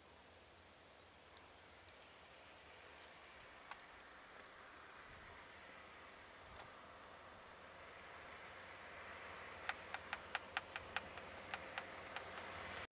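Faint roadside ambience with a steady high-pitched insect drone. A passing vehicle's road noise swells over the second half, and near the end come about a dozen sharp clicks or snaps in quick, uneven succession.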